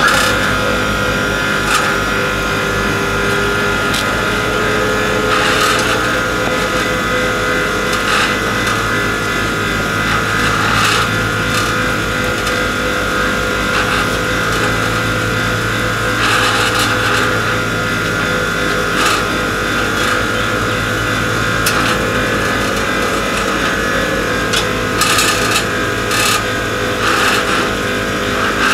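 Harbour crane running steadily as it lowers a sailing yacht on slings into the water: a constant mechanical hum with a few tones held throughout, and scattered clicks and knocks.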